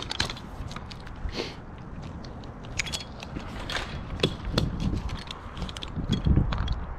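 Irregular small clicks and clanks of climbing hardware and rope being handled, with low rumbling thumps from about four seconds in.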